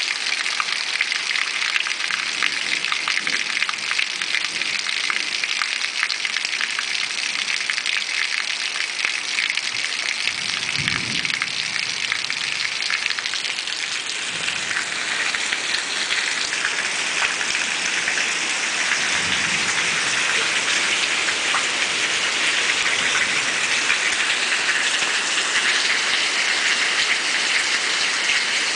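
Heavy rain falling in a steady hiss, thick with the patter of individual drops. Two brief low rumbles come through, one about eleven seconds in and another near twenty.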